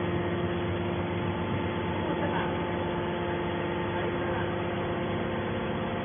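Hydraulic scrap metal baler's electric motor and hydraulic pump running, a steady hum made of several constant tones.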